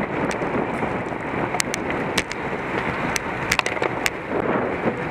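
Steady rushing wind and road noise from a road bicycle riding in a racing pack, with scattered sharp clicks.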